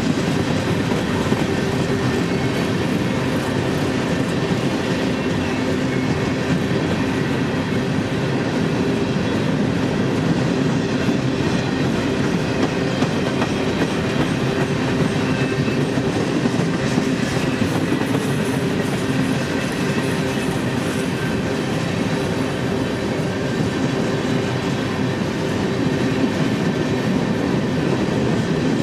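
Freight train of hopper cars rolling past close by: a loud, steady rumble of steel wheels on the rails with a continuous clickety-clack over the rail joints.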